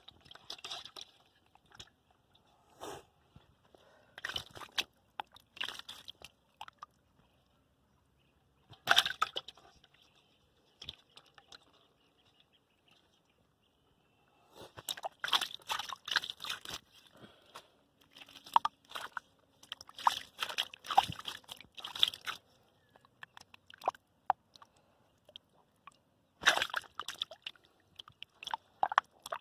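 Hands and arms sloshing and squelching through mud and shallow water in short irregular bursts, with fully silent gaps between them.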